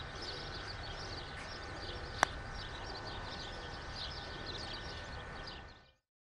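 Birds chirping over a steady outdoor background, with one sharp click about two seconds in: a putter striking a golf ball. The sound cuts off suddenly shortly before the end.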